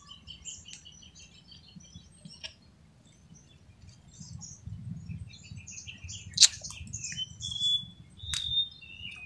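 Birds chirping in short, high calls, with a held whistle-like note near the end. A few sharp clicks break in, the loudest about six and a half seconds in.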